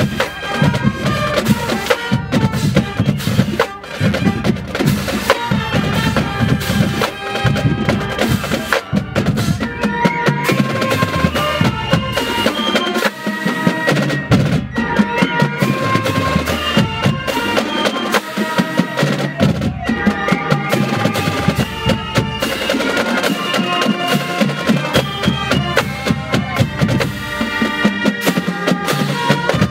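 Marching band drumline playing: snare drums, tenor drums, bass drums and crash cymbals in a continuous, dense rhythm, with sustained melody notes stepping in pitch over the drums.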